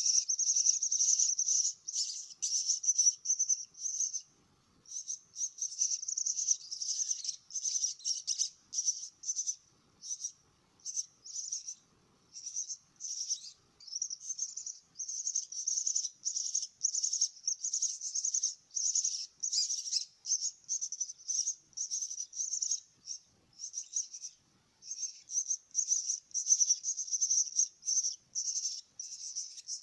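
A jalak (starling) chick calling: high-pitched calls in quick, continuous strings with only short breaks. These are begging calls made while it is being hand-fed.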